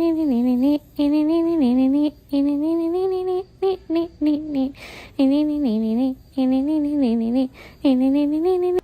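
A single voice singing a slow, lullaby-like melody in short phrases of about a second each, with brief breaks between them and the pitch stepping and bending from note to note.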